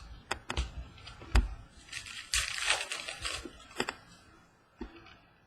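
Trading cards and pack wrapper being handled by hand. Several sharp taps and clicks are followed, about two seconds in, by a rustle of card stock or foil wrapper lasting about a second and a half.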